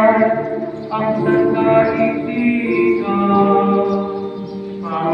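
Many voices singing a slow hymn together, in long held notes that move from pitch to pitch every second or so.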